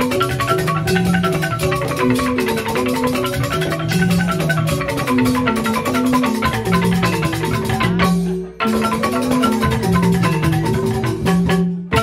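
Balinese joged bumbung gamelan: bamboo tube xylophones (grantang) playing a fast interlocking pattern over a slower, deeper repeating melody. The music drops out briefly about eight seconds in.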